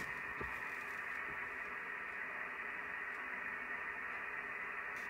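Steady hiss of band noise from an Icom IC-7610 transceiver's speaker, receiving single-sideband on the 17-metre amateur band. The hiss is cut off sharply above the voice range.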